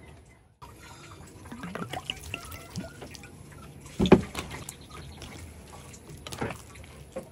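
Wooden spoon and wooden fork mashing soft roasted eggplant in an enamel bowl: wet squelching and light scraping, with a louder knock about four seconds in and another a couple of seconds later.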